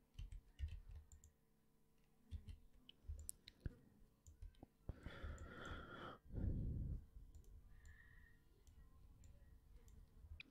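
Faint, scattered computer mouse clicks, with a breath about five to seven seconds in as the loudest sound.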